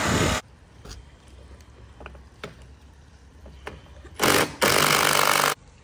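Handheld power tool running in short bursts during deck repair work: one burst cuts off about half a second in, then after a few faint clicks and knocks it runs twice more in quick succession about four seconds in, each burst under a second.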